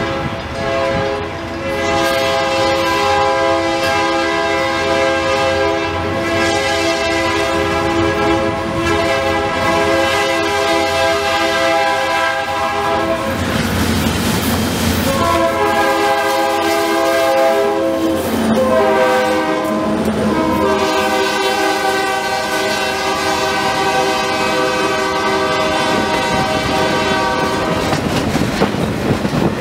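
Georgia Central diesel freight locomotive's multi-chime air horn sounding the grade-crossing signal as the train approaches: a very long blast, a shorter one, a short one, then a long one. Under the horn the engines rumble past, and near the end the boxcar wheels click over the rail joints.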